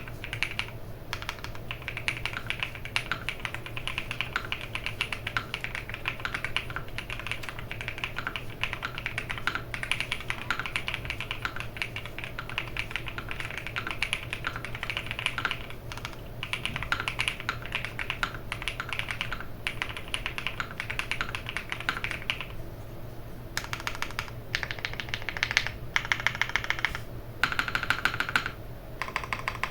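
Fast typing on a custom mechanical keyboard with Durock POM Cherry Blossom linear switches, a POM plate and CRP R4 keycaps: a steady rush of key strikes, then, after a short pause about 23 seconds in, several short bursts of very rapid repeated key strikes.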